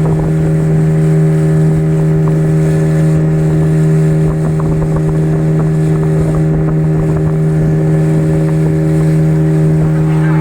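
Speedboat engine running steadily under way, holding one constant low pitch.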